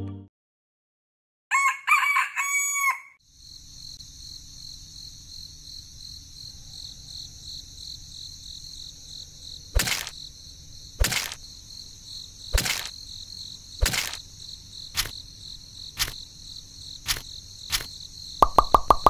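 A rooster crowing once, about two seconds in. It is followed by a steady chorus of insects, likely crickets, with a series of sharp clicks about one a second.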